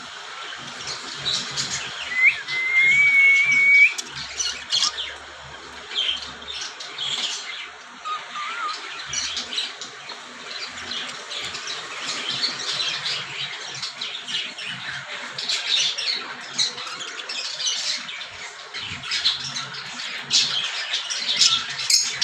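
Cockatiels squawking and chirping over and over, with one held whistle about two seconds in.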